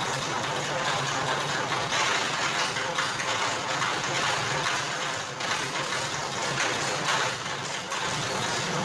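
Motor-driven sugarcane machine running steadily, its rollers scraping and grinding the cane stalks being fed through it over a constant motor hum.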